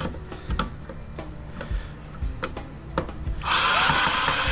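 Metal parts clicking as screws on a TV controller chassis are worked, then about three and a half seconds in a power drill/driver runs for about a second and a half, backing out a tight screw.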